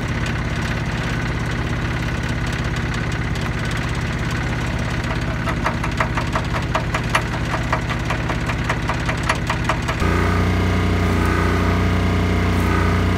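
Arc welding on a kei truck's broken steel frame: a dense crackle of the arc, with a rapid regular ticking of about four a second for a few seconds in the middle, over a small engine running steadily. The crackle stops about ten seconds in, leaving the engine's hum a little louder.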